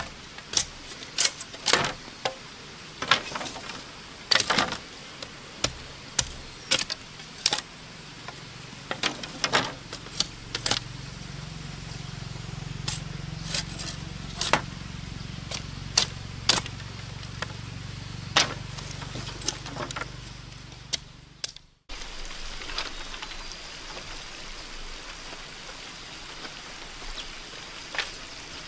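A machete blade striking and splitting bamboo strips in sharp, irregular knocks, about one a second, with a low hum underneath in the middle stretch. The chopping stops abruptly about three quarters of the way through, leaving only a few faint knocks.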